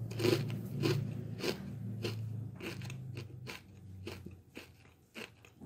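Someone chewing a mouthful of dry Catalina Crunch Honey Graham cereal squares, crunching about twice a second, the crunches growing fainter near the end.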